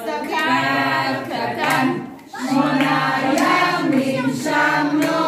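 A group of adults and children singing a Hanukkah song together, with hand claps along to it; the singing breaks briefly a little past the two-second mark.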